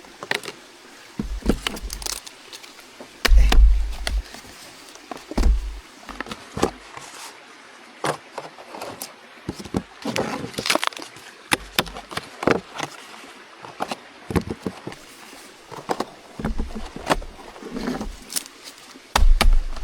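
Cooled, hardened beeswax cakes being dug and pried out of their container by hand: irregular knocks, clicks and scrapes, with a few heavier low thumps.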